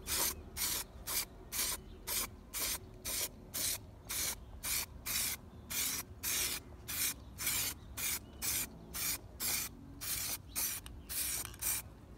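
Hand sanding: sandpaper rubbed back and forth in even strokes, a hissing scrape about two and a half times a second, during bodywork on a Honda CBX 250 Twister restoration.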